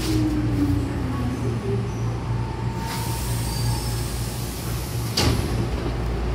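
Hankyu commuter train braking to a stop, its motor tone falling in pitch over a steady low hum, with a brief rush of air noise about three seconds in. Near the end the pneumatic double sliding doors start to open with a sudden burst of air.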